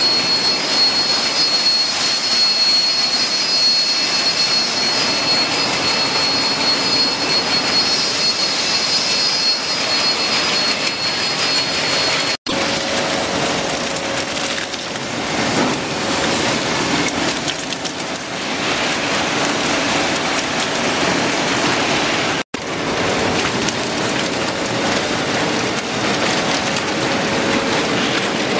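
Potato slice washing and processing line running: steady machine noise mixed with rushing, splashing water. A thin high whine is present for the first twelve seconds or so and a lower hum later, and the sound breaks off for an instant twice.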